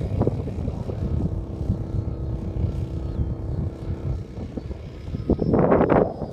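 Wind buffeting the microphone, with a model airplane's motor giving a steady tone from about a second in until past halfway. A stronger gust hits the microphone near the end.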